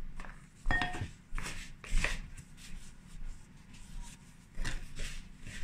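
Wooden spoon stirring and scraping crumbly flour-and-butter dough in a plastic mixing bowl, with several sharp scrapes and knocks against the bowl. The loudest come about a second and two seconds in.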